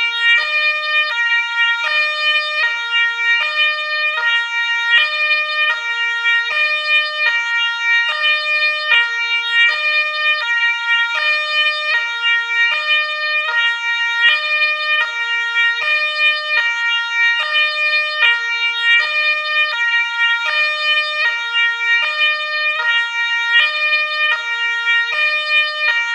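Ambulance two-tone siren, a high note and a low note alternating steadily, each held about half a second, with no glide between them.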